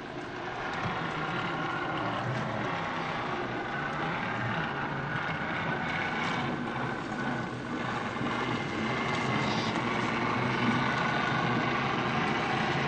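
Electric motor and gear drivetrain of an RC4WD Beast 6x6 scale RC truck whining steadily as it drives through deep mud, getting louder about a second in.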